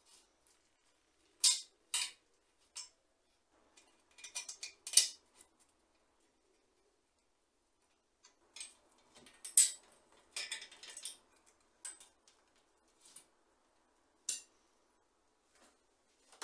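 Small steel bicycle parts and a tool clinking and clicking against the rear axle as a stamped chain adjuster and axle nut are fitted on the hub. Two sharp clinks come early, then a handful of clustered clicks about five seconds in and again near the middle, and a single click near the end.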